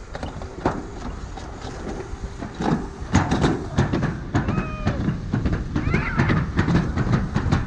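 Short high-pitched children's calls and distant voices over a steady low background noise.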